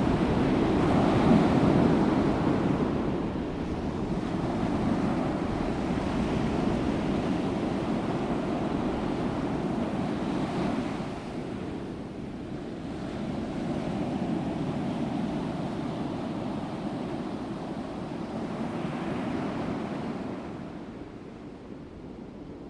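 Ocean waves washing onto a shore in a continuous surging wash, swelling and ebbing every four to five seconds, loudest in the first couple of seconds and falling away near the end.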